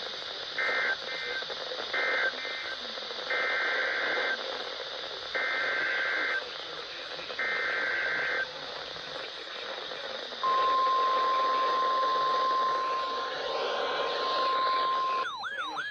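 Weather radio receiver over a steady static hiss, sending short bursts of two-pitch data tones (the SAME alert header) several times. About ten seconds in, a steady single-pitch warning alarm tone starts, signalling that a warning is being broadcast. A warbling, sweeping tone cuts in near the end.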